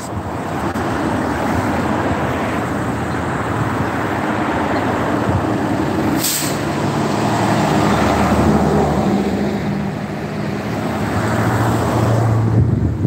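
A heavy road vehicle's engine running close by, with a short sharp hiss about six seconds in, and the engine growing louder near the end.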